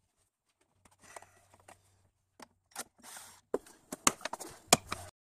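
Hard plastic air filter box being worked loose and lifted from the engine bay: rubbing and rustling of plastic with a series of sharp clicks and knocks, the loudest near the end, cutting off suddenly.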